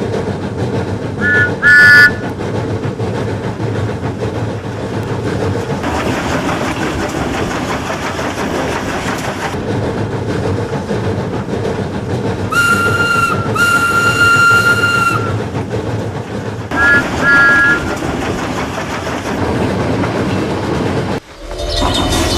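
Small steam locomotive running along the rails with a steady rumble and clatter, sounding its two-note whistle: two short toots early on, two longer blasts about halfway through, and two more short toots a few seconds later. Near the end the running sound briefly drops away, then picks up again with a different character.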